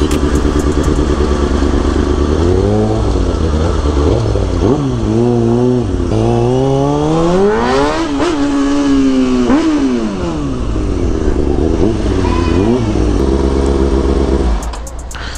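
Kawasaki ZX-6R 636 inline-four sport-bike engine heard from the rider's seat, its pitch rising and falling repeatedly as it accelerates and slows in traffic, with one long rise and fall about eight seconds in. It settles to a steady idle and cuts off shortly before the end.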